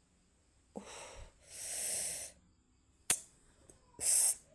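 A woman's sharp breaths hissing in and out three times, in pain from an injury. There is a single sharp click about three seconds in.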